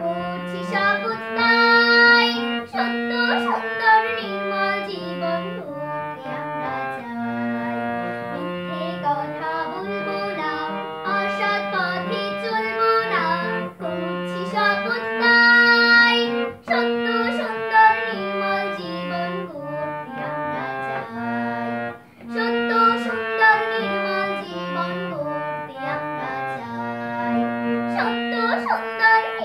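A young girl singing a Bengali rhyme song over a melodic accompaniment of long held notes that move step by step.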